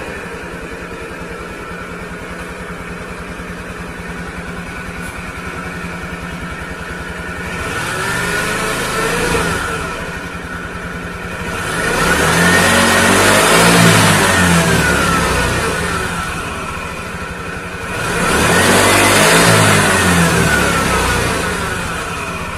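Honda Bite AF59's 49 cc water-cooled four-stroke single-cylinder engine idling steadily, then revved by the throttle three times: a short blip about eight seconds in, then two longer revs that climb and fall back to idle.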